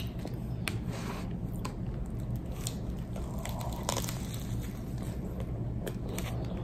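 A person biting into and chewing a chaffle sandwich close to the microphone, with a few sharp crunches from the waffle, the loudest about four seconds in.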